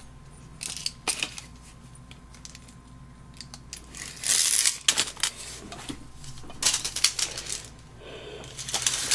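Small objects being handled: scattered light clicks and clinks, with a brief rustle about four seconds in and another near the end.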